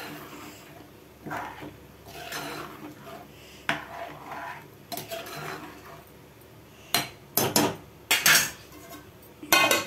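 Steel spoon stirring and scraping through watery chicken curry in a metal pot, then a run of sharp metal-on-metal clanks, the loudest sounds, in the last three seconds.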